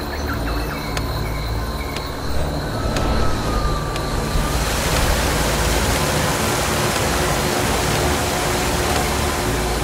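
Cinematic sound design: a low held drone with faint ticks about once a second and a few sliding whistle tones, then a loud wash of hiss swells in about halfway and holds.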